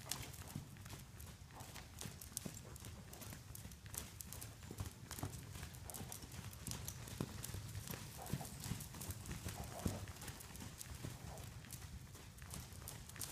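Hoofbeats of a horse cantering over sand arena footing, an irregular run of soft thuds and clicks.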